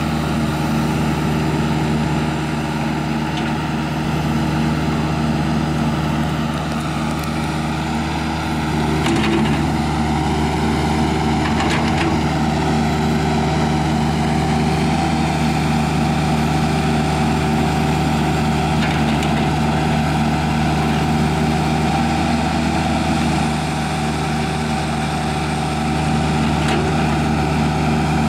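Kubota U-55 mini excavator's diesel engine running steadily while its hydraulics work the boom, arm and bucket. A steady whine rises a little about a third of the way in, with a few faint knocks scattered through.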